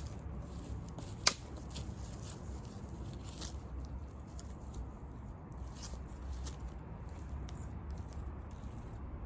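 Wood fire crackling with scattered small pops and one sharp, loud pop about a second in.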